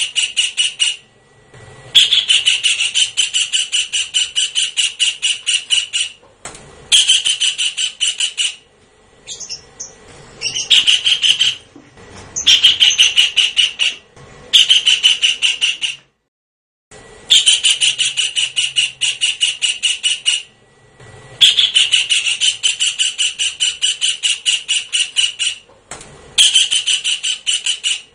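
Kingfisher call played as a bird-luring recording: bursts of rapid repeated notes, several a second, each burst lasting one to four seconds, with short pauses between.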